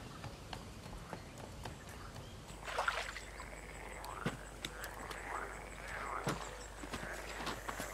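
Frogs croaking faintly at a pond, a run of short rising-and-falling calls starting a few seconds in, over scattered light clicks and snaps.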